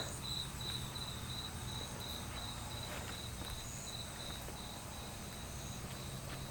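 Night-time cricket chirping steadily, about three chirps a second, fading after about four seconds, over a steady low hum.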